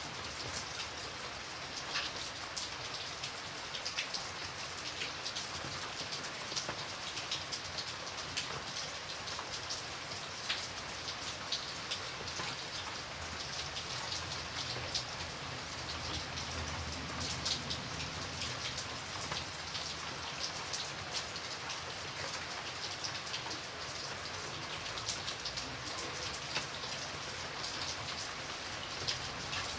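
Steady rain falling on a surface, a constant hiss dotted with many small individual drop ticks.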